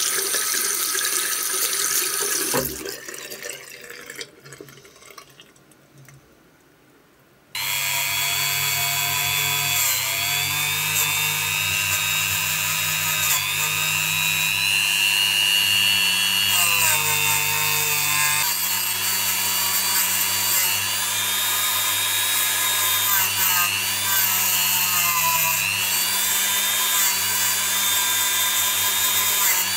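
Tap water running for the first couple of seconds, then fading to near quiet. A few seconds later a handheld rotary tool fitted with a soft brass wire brush wheel starts suddenly and runs with a steady whine, its pitch dipping now and then, as it cleans a zinc diecast toy car body.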